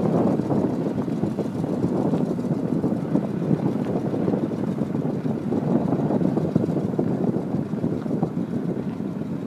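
Wind blowing across the microphone: a steady, noisy rush with no engine tone in it.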